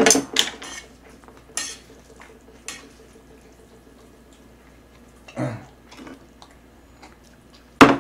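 Metal tongs clinking and scraping against a metal serving tray while lifting and serving noodles: a few separate clacks, the loudest one just before the end.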